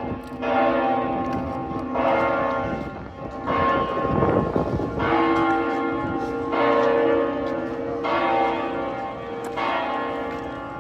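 Catedral de la Almudena's church bells ringing, a bell struck about every one and a half seconds, each stroke ringing on into the next. A short low rumble comes about four seconds in.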